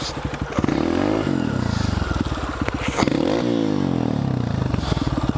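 Honda CRF150F dirt bike's single-cylinder four-stroke engine revved up and let fall back twice, with slow, even low-rev firing pulses between the revs, as the rider tries to power the bike free of an obstacle it is stuck on.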